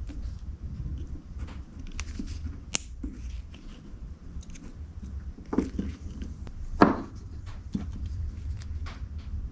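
Hand work on small outboard motor parts: scattered light clicks and knocks of tools and metal parts being handled, with a louder knock about seven seconds in.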